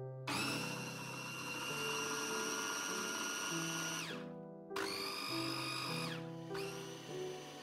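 Electric 1500 W food processor motor puréeing tomatoes in two pulses. The first runs about four seconds and winds down. The second, shorter pulse starts a moment later and also winds down.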